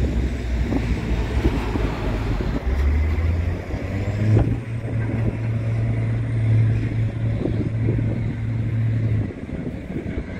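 A steady low engine hum over a rush of background noise. It steps up in pitch about four seconds in and drops away just after nine seconds, when the overall level falls.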